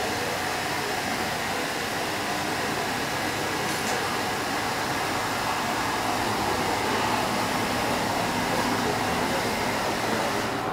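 Steady machine hum with a faint high whine, even throughout with no distinct events.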